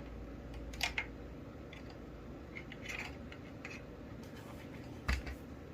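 Handling noise from a plastic smoke alarm: a few light clicks and scrapes, then one heavier knock about five seconds in.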